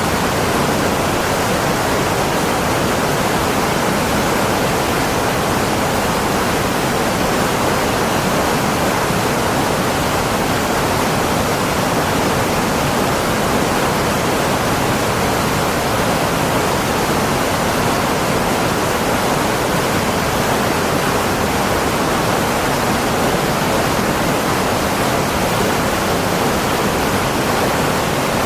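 A steady, unchanging rushing noise, like falling water or static, with no breaks or changes.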